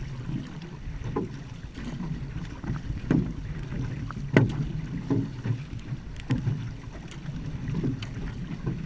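Outrigger canoe (va'a) paddles dipping and pulling through the water roughly once a second, over the rush of water along the hull and wind on the microphone, with one stronger stroke about halfway through.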